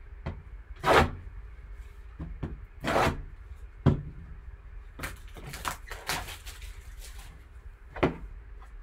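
Gloved hands handling and turning over a sealed cardboard trading-card box on a table: a few short scrapes and taps of cardboard against the tabletop, with a run of rustling handling sounds in the middle.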